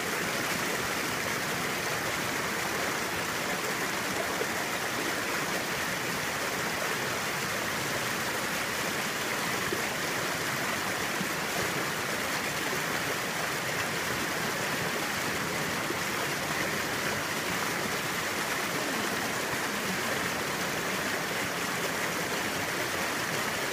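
Small creek flowing over rocks and a little cascade: a steady rush of water.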